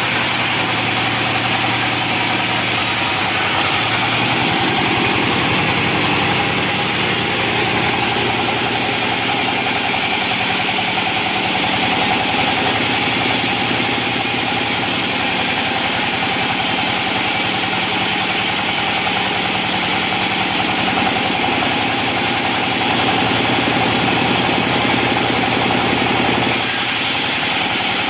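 Sawmill machinery running steadily with an even engine-like hum, shifting slightly in tone about four seconds in and again near the end.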